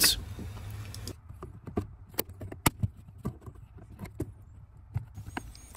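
Scattered light clicks and taps, about seven over a few seconds, from hands handling plastic wiring connectors and clips on a car's steering column.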